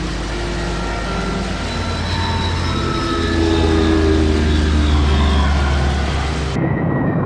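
Propeller aircraft piston engines running loud, with a steady low hum under a dense engine noise. The sound swells to its loudest about four seconds in, then cuts off abruptly near the end.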